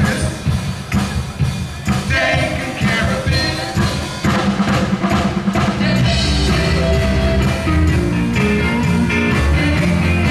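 Live rock band playing, a man singing over electric bass, electric guitar and drum kit. About six seconds in, the bass and drums fill out and the low end gets fuller.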